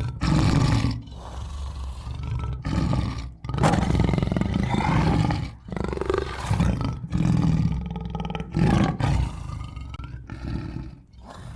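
Tiger roaring and growling: a run of deep, rough roars broken by short pauses, some louder and some lower.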